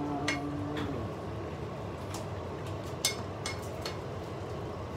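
A spatula clicking and scraping against a frying pan as minced meat and bell peppers are stirred, over a steady low hiss.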